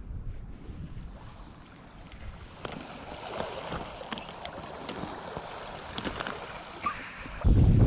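Outdoor wind and water noise with scattered small clicks and ticks. Near the end a loud low rumble of wind buffeting the microphone sets in.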